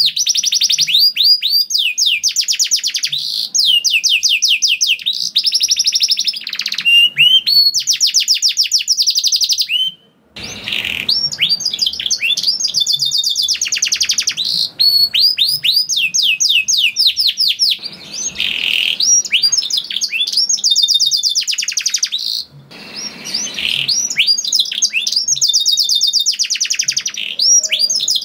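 Domestic canary singing long, rapid trills of repeated notes, one rolling phrase after another. The song breaks off briefly about ten seconds in and again about two-thirds of the way through.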